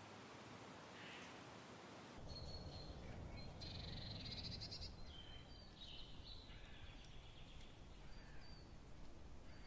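Faint hiss, then from about two seconds in a low rumble with a string of short, high chirping and whistling calls.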